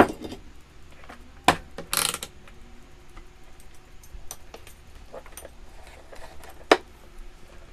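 Small tools and metal parts being handled on a workbench: a few sharp clicks and knocks, a short rattle about two seconds in, and another sharp click near the end, with faint ticks between.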